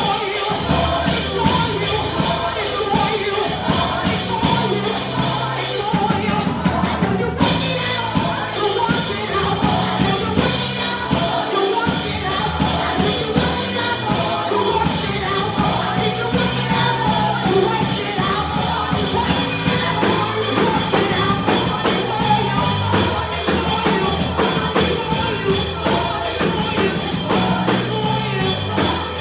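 Live church worship music: a band with drums and sustained keyboard chords playing a praise song, with singing over it.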